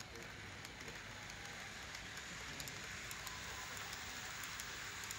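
Model electric train running along the layout track past close by: a steady rushing hiss of wheels on the rails that grows louder over the first few seconds, with scattered faint clicks.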